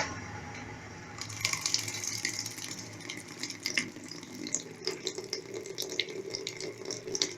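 Water running and splashing inside the tub of a Brastemp Clean 5 kg top-loading washing machine, with scattered drips and trickles, while the agitator is at rest.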